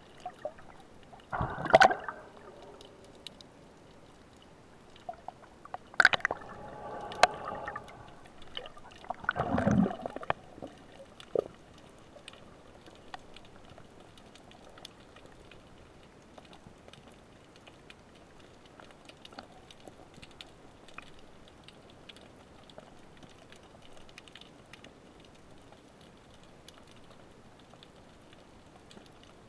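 Underwater water sounds heard through a camera housing: three bursts of gurgling and sloshing in the first ten seconds, then a quiet steady hiss with faint scattered clicks.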